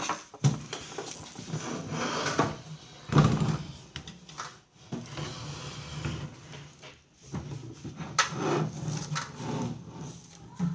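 Irregular knocking, clattering and scraping of objects being handled, a cluster of sharp knocks a little after three seconds in and again near the end.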